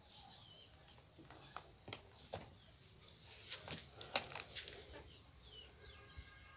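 Faint clicks and scrapes of a large kitchen knife working on a raw chicken gizzard as it is cut open and cleaned by hand, the sharpest click about four seconds in.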